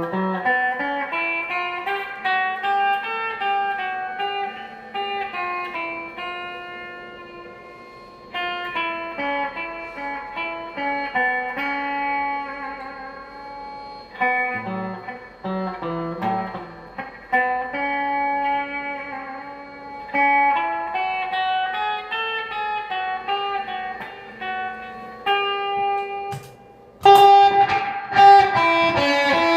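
Guitar music: a single guitar picking out a slow melody note by note, with a louder, fuller passage near the end.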